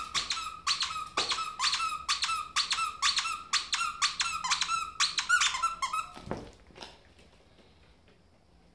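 Squeaker in a plush toy squeezed over and over, a rapid run of high squeaks about two or three a second. The squeaking stops about six seconds in, around a dull thump.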